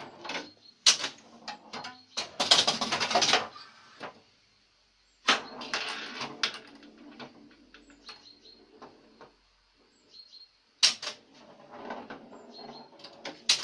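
The relays, stepping units and score reels of a 1970 Bally See Saw electromechanical pinball machine clattering and snapping in irregular bursts. There is a longer clatter about two to three seconds in, a short pause, and another sharp burst near the eleventh second. This German version has no chime bells, so only the mechanical clicking is heard.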